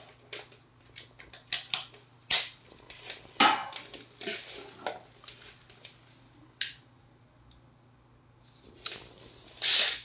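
Hands handling plastic parts and cables on a wooden floor: scattered sharp clicks and knocks with quiet rustling between. One sharp click a little over six seconds in comes as the inline switch on the LED power supply's cord is pressed.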